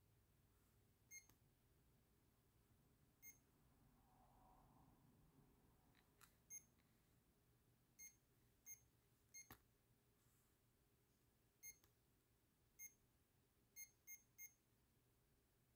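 Besta EVEC-666 electronic dictionary beeping from its small speaker: about nine short, high electronic beeps at irregular intervals, with a quick run of three near the end, and a few faint clicks in between. The whole is quiet.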